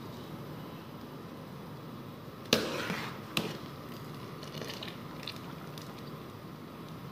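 A metal strainer ladle knocking against a metal cooking pot: one sharp clack about two and a half seconds in with a brief ring, a second knock a second later, then a few light clinks. Underneath is a steady hiss from a pot of rice water at a rolling boil on a gas stove.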